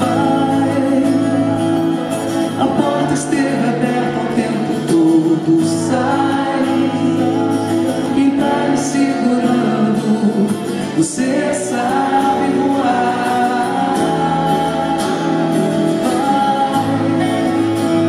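A woman singing live, accompanying herself on guitar.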